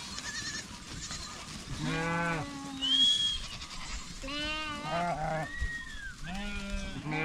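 Farm animals bleating: about four quavering calls in a row. A short, high whistled note sounds about three seconds in, over a steady background hiss.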